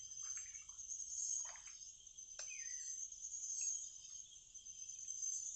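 Steady, high-pitched chorus of insects such as crickets in riverside forest, with a few faint brief sounds beneath it about a second and two seconds in.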